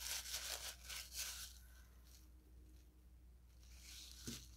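Paper wrapping rustling and crinkling in the hands as a small wrapped crystal is unwrapped, mostly in the first second and a half.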